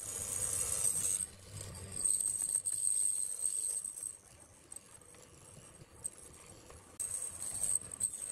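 Benchtop hollow-chisel mortiser running with a thin high whine as its square chisel plunges into pine and cuts a mortise. The sound drops to a low level about four seconds in, and the whine returns near the end.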